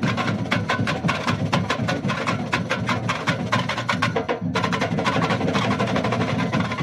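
Samba batucada drum section playing a fast, dense rhythm on hand-held drums. The sharp high strikes break off briefly about four and a half seconds in, then the drumming carries on.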